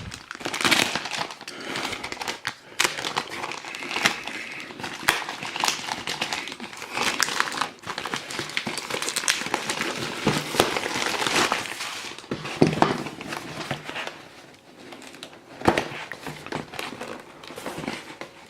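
Packaging being opened and unwrapped by hand: continuous crinkling and rustling of wrapping, with scattered clicks and a few louder knocks as the contents are handled.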